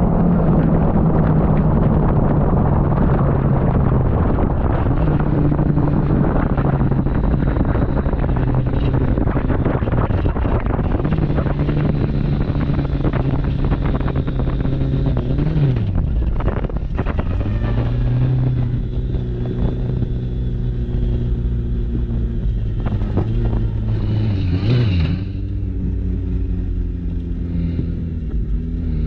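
Honda CBR1100 inline-four motorcycle engine driving an off-road buggy, running steadily under way. Its pitch drops sharply about halfway through and climbs back, and there is a short rev blip near the end. Wind buffets the microphone throughout.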